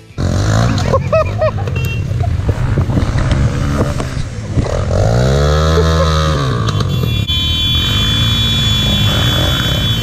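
Engines of 250cc enduro motorcycles running, with one bike revving up and dropping back a little past halfway through as it pushes across a creek.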